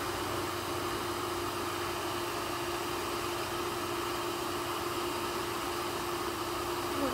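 Bee vacuum running steadily, its motor drawing air through a flexible hose held against honeybees on the comb, giving a constant hum with a steady tone. A brief chirp near the end.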